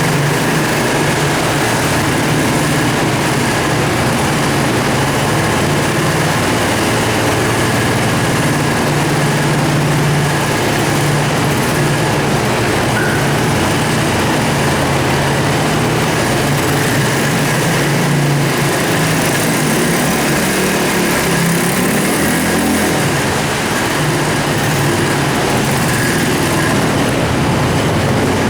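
50cc two-stroke Roketa ATV engine running continuously, its pitch drifting up and down with the throttle, over a steady rushing noise.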